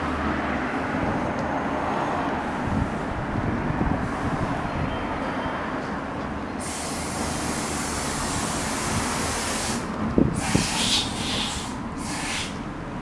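Kawasaki Zephyr 1100RS's air-cooled inline-four idling steadily through an aftermarket muffler. A stretch of hiss comes in about halfway through, and a few knocks and short hissy bursts follow about ten seconds in.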